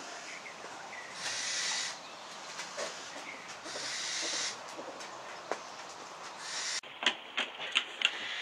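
An owl hissing, repeated long breathy hisses about every two and a half seconds. Near the end come several sharp clicks.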